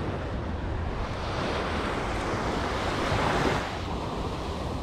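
Ocean surf: a wave swells and washes in, loudest about three and a half seconds in, then eases off, over a steady rumble of wind on the microphone.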